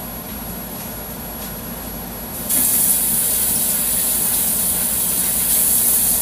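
Water running from a kitchen faucet: a steady hiss that starts suddenly about two and a half seconds in and cuts off near the end.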